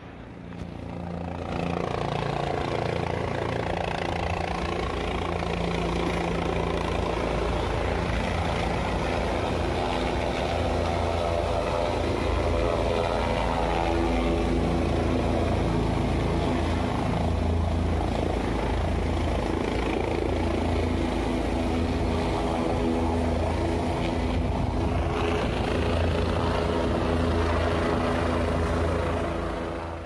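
A motor engine running at a steady, even drone. It swells up over the first couple of seconds and cuts off abruptly at the end.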